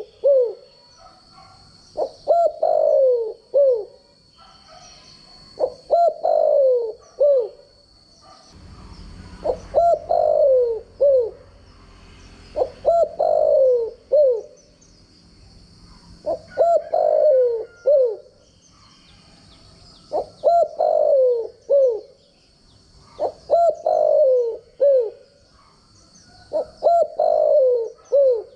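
Spotted dove cooing its song over and over, about eight phrases, one roughly every three and a half seconds. Each phrase is a few short notes with a longer falling coo at its centre.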